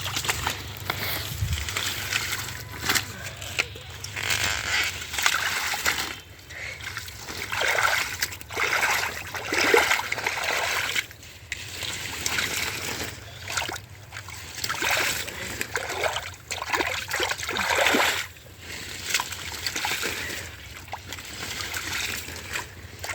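Water splashing and sloshing in irregular bursts, as made by hands and bodies moving through shallow river water while fishing by hand.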